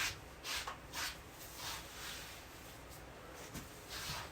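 A comb being drawn through a skinned otter's fur, a series of short brushing strokes, quicker and louder early on, pausing, then resuming near the end.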